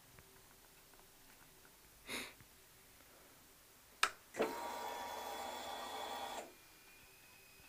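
On a Honda VFR1200 motorcycle, a brief hiss, then a sharp click followed by about two seconds of steady electric whirring from a small motor that cuts off abruptly: one of the strange sounds the owner is recording.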